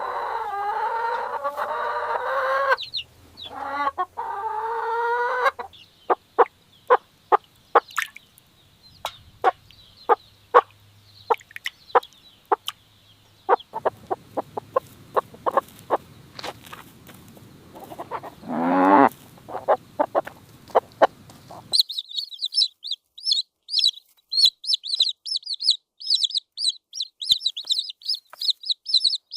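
Chickens calling: long drawn-out calls at first, then a long run of short sharp clucks with one longer call among them. For the last several seconds comes a rapid string of high-pitched cheeping.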